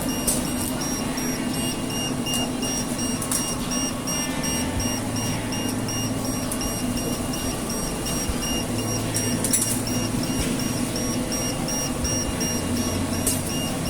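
Self-service soft-serve ice cream machine beeping over and over in a steady fast pattern, with a low motor hum that starts and stops several times as it dispenses.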